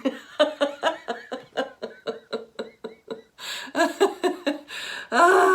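A woman laughing, a rapid run of short 'ha' pulses about five a second, then a few longer laughs near the end; deliberate laughter-yoga laughter.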